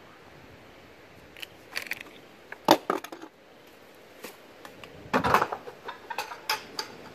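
A wild turkey striking the front bumper of a Mack truck, a few scattered sharp taps and knocks. About five seconds in comes a louder, quicker flurry as it flaps up into the air.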